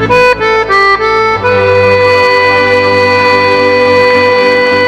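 Accordion playing a quick run of short notes, then holding one long chord.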